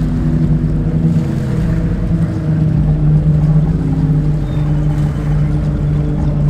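Engine running steadily with a low hum, its pitch dipping slightly and then settling.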